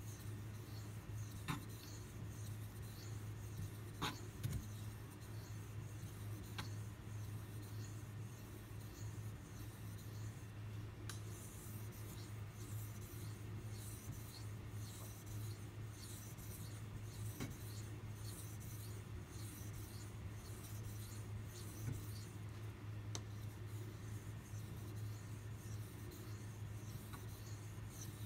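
Kitchen knife blade being stroked back and forth across a wet 4000-grit water stone with a slurry on it: a quiet, regular scraping rhythm that becomes clearer about eleven seconds in, with a few light clicks. A steady low hum runs underneath.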